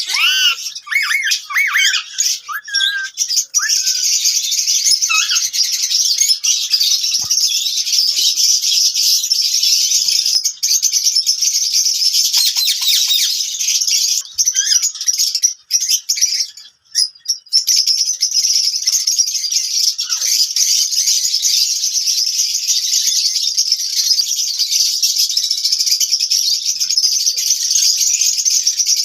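A flock of lovebirds chattering and squawking together in a continuous high-pitched din. A few separate calls rising and falling in pitch stand out in the first seconds, and the noise briefly breaks off about 16 to 17 seconds in.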